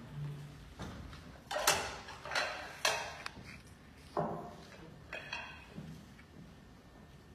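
A few short knocks and scraping sounds of stage props and movement, most of them in the first half, with a brief low hum just after the start.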